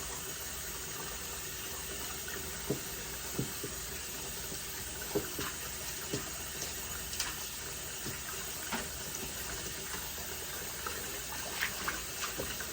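Tap water running steadily into a sink as wigs are rinsed under it, with a few light knocks and splashes scattered through.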